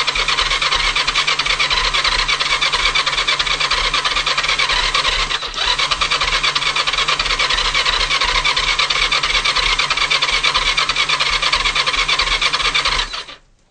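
Kawasaki GPZ500's electric starter cranking its parallel-twin engine, a steady high whine over a fast even beat, with a brief dip about five and a half seconds in, and it cuts off suddenly near the end. The engine does not catch: the bike won't start even with new fuel, plugs, HT lead, coil and battery.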